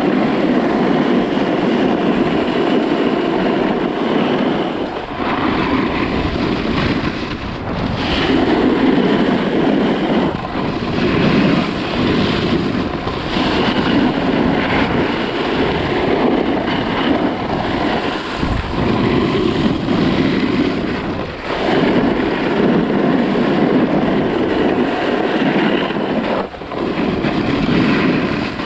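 Snowboard scraping across packed snow through a run of turns, swelling and easing every few seconds, with wind rushing over the microphone.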